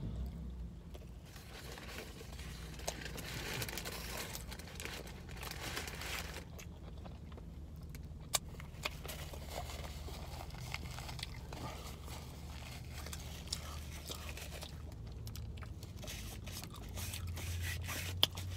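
Close-up eating sounds: chewing and crunching food, with crinkling of a paper fast-food wrapper and a few sharp clicks, over a low steady hum.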